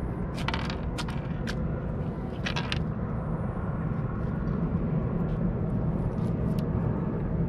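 Fillet knife cutting into a rockfish: a few short scraping and crunching strokes, most in the first three seconds, over a steady low rumble.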